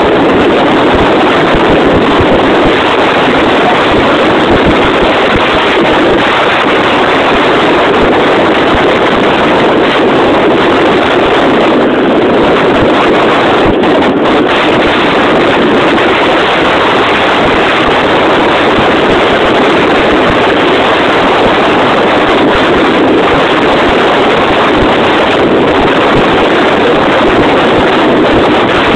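Motorcycle riding along at a steady pace, its engine and road noise buried under heavy wind buffeting on the microphone, with no change in speed.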